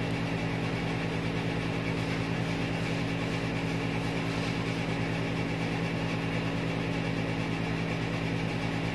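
A steady low mechanical hum with several fixed low tones that hold even throughout.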